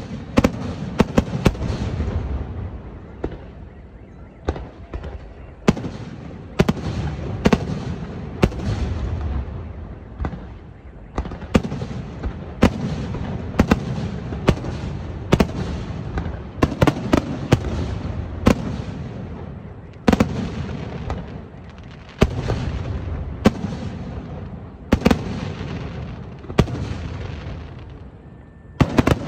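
Aerial firework shells bursting overhead: dozens of sharp bangs, some in quick clusters, with a low rumble between them.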